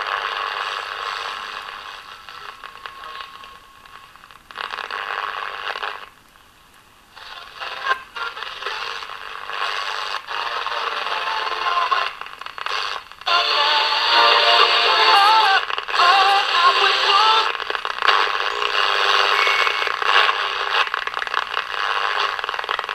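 Captain YT-161 six-transistor pocket radio being tuned across its dial: its small speaker gives a thin sound with no bass, passing through noise and snatches of stations, with a station playing singing about halfway through.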